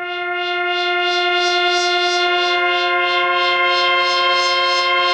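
80s-style synthesizer pad built from detuned sawtooth oscillators, swelling in and held, with a second higher note joining about two seconds in. Its bright top pulses about three times a second, a bit of flutter in the sound.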